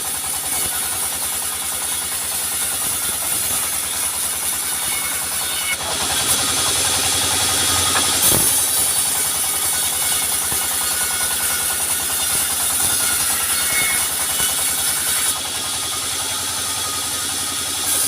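Sawmill machinery running with a steady engine-driven drone and a high hiss, growing louder and brighter about six seconds in and easing back a few seconds before the end.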